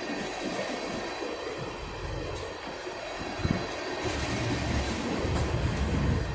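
Freight train of railroad tank cars rolling past on the rails: a continuous rumble of wheels and cars, with a short clank about three and a half seconds in, and the rumble growing louder from about four seconds in.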